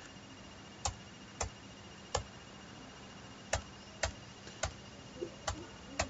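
About eight sharp computer clicks at uneven gaps, as presentation slides are skipped forward one after another. A faint steady hum runs beneath them.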